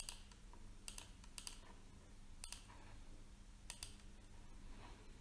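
Faint computer mouse button clicks, about five irregularly spaced sharp clicks, the last a quick double, as digits and then OK are clicked on an on-screen keyboard; a low steady room hum underneath.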